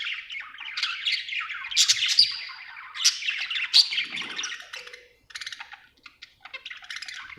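Budgie (budgerigar) chirping happily in a rapid, dense chatter of high calls that thins to scattered chirps about two-thirds of the way through.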